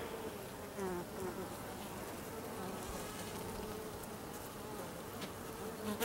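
Honey bees buzzing on an open hive frame: a steady low hum of many bees, with single bees buzzing close by now and then in short wavering tones.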